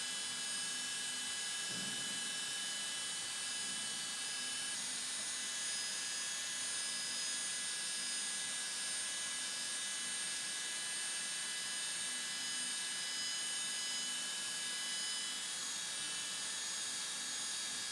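High-speed 24,000 rpm spindle of a UGINT PT 400S CNC machining center milling a metal block with an end mill: a steady high-pitched whine over hiss. One of its tones drops out about five seconds in.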